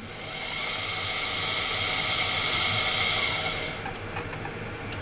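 Vibrating microtome tissue slicer's drive running the blade carriage back between cuts: a steady hissing whine that swells in, holds for about three seconds, then drops away.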